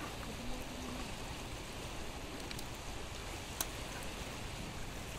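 Steady rushing hiss of a rocky shore at low tide, water and wind noise with no clear events. A brief low hum sounds about half a second in, and a single sharp click comes about three and a half seconds in.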